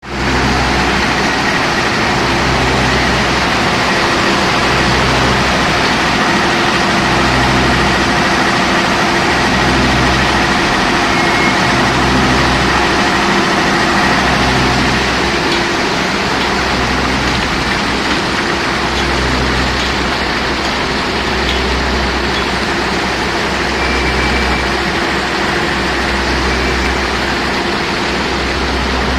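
Coal-slime washing machinery with a spiral classifier running: a loud, steady mechanical noise with a low rumble that swells and fades every couple of seconds and a faint steady whine above it.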